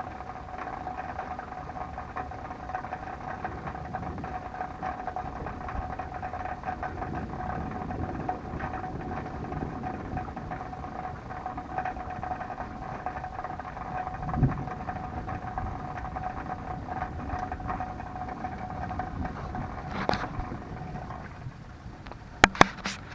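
A motor vehicle engine running steadily: a high whine over a low rumble, which cuts off about 21 seconds in. There is a single thump partway through, and a few loud, sharp clicks near the end.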